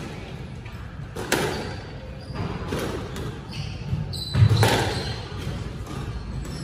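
Squash rally: the ball cracking off rackets and the court walls several times, echoing in the hall, the loudest hit about four and a half seconds in, with a brief high squeak of shoes on the wooden court floor just before it.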